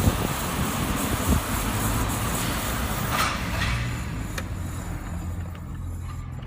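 Road and running noise inside a 2014 Mazda3 on the move: a steady rumble with a few sharp bumps in the first second or so, growing quieter in the second half.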